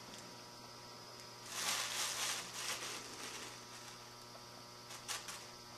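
Fingers rubbing wet clay to smooth a coil into a leg joint: a soft rubbing noise lasting about two seconds, then a brief second rub near the end. A steady electrical hum runs underneath.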